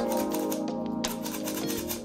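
Rapid light tapping of a metal mesh sieve as flour is sifted through it, over instrumental background music.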